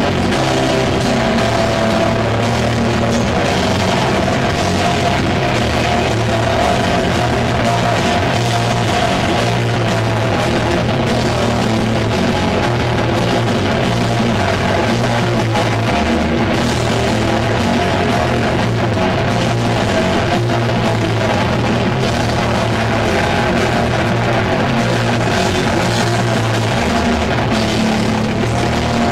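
Heavy metal band playing live at full volume: distorted electric guitar, bass guitar and drum kit, steady and unbroken.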